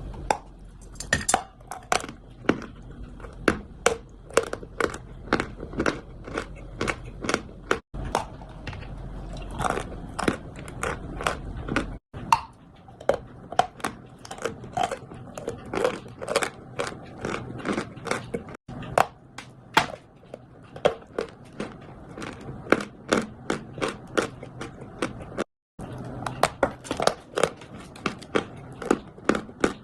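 Chalk being bitten and chewed: sharp, irregular crunches, a couple to a few a second, between quieter chewing.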